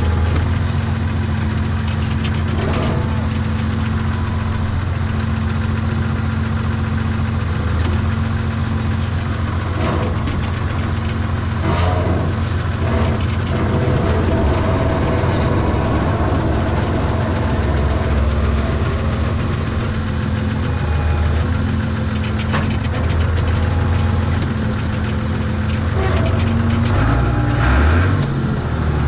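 Renault tractor's diesel engine running steadily, heard from inside the cab, with a few scattered knocks and clatters. Near the end the engine note rises and then falls away.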